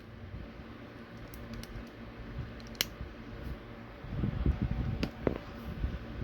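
Handling noises from small parts and tools being worked on: a sharp click about three seconds in, then a stretch of low rustling and light knocking with another click partway through.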